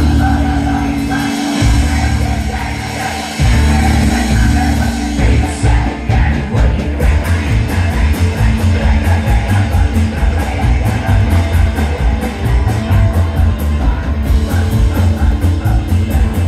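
A punk band plays loud and fast with banjo, electric guitar, upright bass, drums and vocals. The full band comes back in hard about three and a half seconds in, then drives on with a fast steady beat.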